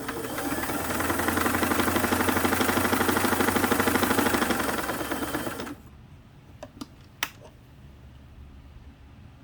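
Singer 327K sewing machine stitching a zigzag at speed: a rapid, steady rattle of needle strokes that stops about six seconds in. A few sharp clicks follow.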